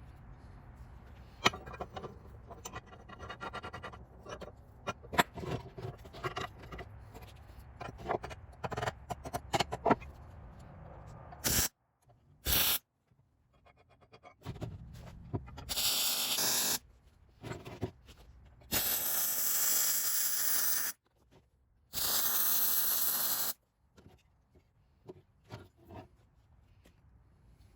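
MIG welder arc in a few short runs of steady crackling hiss, each stopping abruptly, the longest about two seconds, as a nut is welded onto steel. Before them, a stretch of scattered metal clinks and scraping as the parts are handled.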